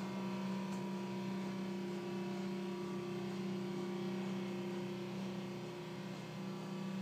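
Curved-rail stairlift's electric drive motor running steadily as the chair travels along its rail: a level, even hum.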